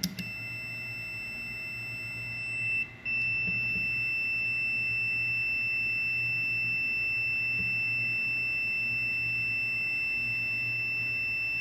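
CL210 digital clamp meter's continuity buzzer sounding a steady high beep, cut off briefly about three seconds in and then resuming. The beep means continuity through the contactor's contacts with the button pressed: the contactor is working properly.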